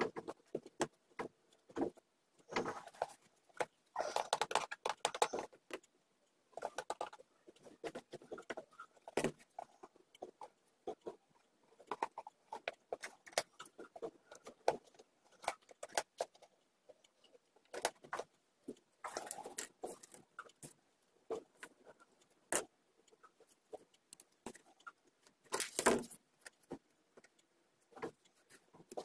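Irregular small clicks, taps and scraping from a small screwdriver, tweezers and tiny metal latch parts and screws being worked on a wooden box lid, with a few longer spells of rustling from gloved hands.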